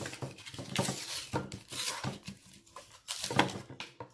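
Crinkling and clicking of plastic packaging being handled and torn open, a rapid, uneven run of small crackles.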